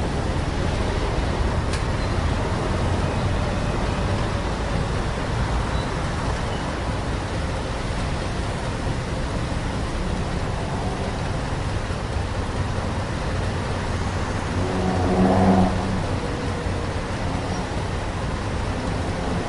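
Street traffic ambience: a steady rumble of passing road vehicles, with one louder, pitched sound swelling briefly about three quarters of the way through.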